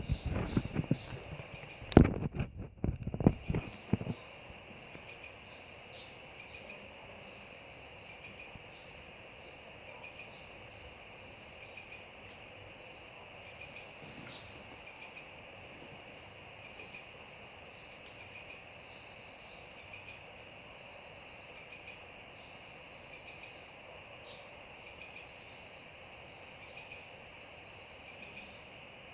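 Night chorus of crickets and other insects: a steady high-pitched buzzing with regular short chirps over it. A few loud knocks and thumps come in the first four seconds before the chorus carries on alone.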